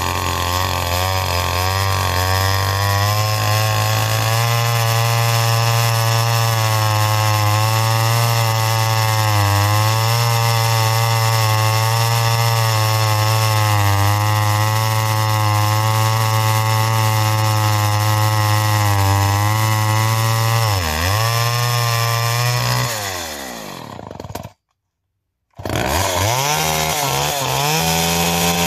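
Homelite XL two-stroke chainsaw running steadily as it cuts through a large log. Near the end the engine note falls away and the sound cuts out for about a second, then the saw is heard running again, its pitch rising.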